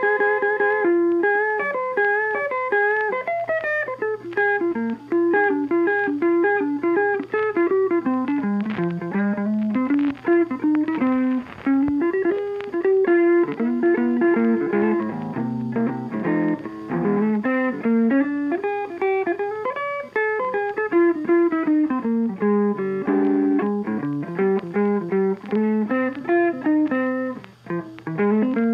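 Instrumental background music: a tune of quick, successive notes.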